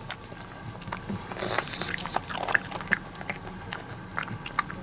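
Pug licking and chewing a small treat: scattered small clicks and smacks of its mouth and teeth, with a short breathy hiss about a second and a half in.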